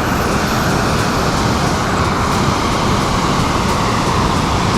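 Steady roar of water rushing through a lake spillway.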